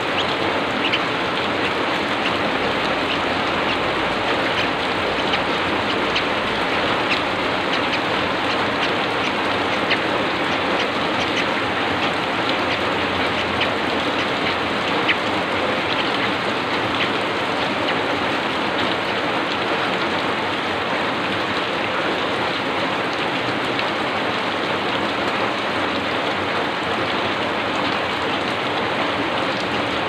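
Heavy rain falling steadily: a dense, even hiss with scattered sharper drop taps.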